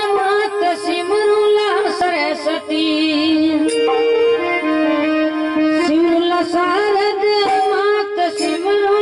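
Rajasthani devotional bhajan: a male singer's voice gliding and wavering over a sustained harmonium and electronic keyboard accompaniment.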